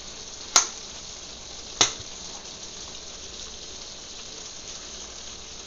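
Sausage and vegetable stir fry sizzling steadily in the pan, with two sharp clicks about a second apart near the start.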